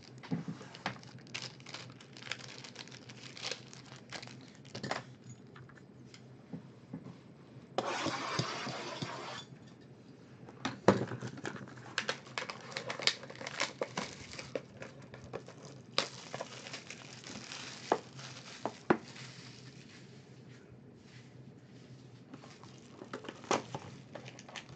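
Sealed trading-card hobby boxes being handled on a table: cardboard boxes knocking, tapping and sliding, with plastic wrap crinkling. About eight seconds in, a dense tearing noise runs for about a second and a half.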